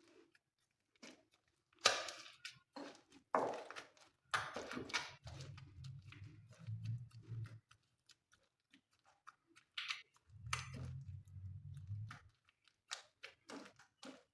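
Glossy slime being squished and kneaded by hand, making irregular sticky pops and crackles; a low hum comes in twice.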